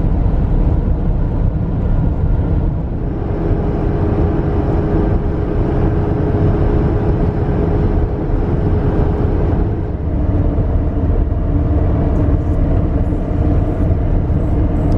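A motor vehicle running with a steady low rumble; a faint hum in it changes pitch about ten seconds in.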